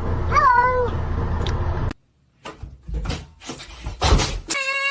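A cat gives a short meow that rises and falls, over a steady low background hum. After a sudden cut there are a few short knocks or rustles, and near the end a cat starts a long, level meow.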